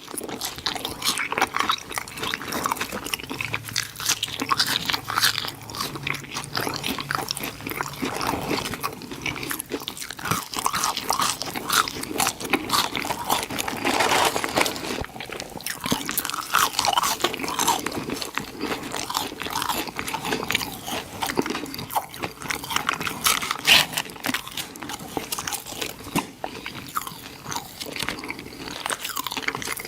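A person biting and chewing crunchy fast food close to the microphone, with continuous crunching throughout.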